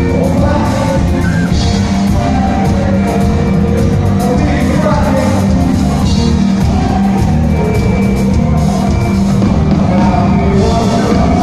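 Live band playing loudly through a concert sound system, heard from the crowd, with singing over the music.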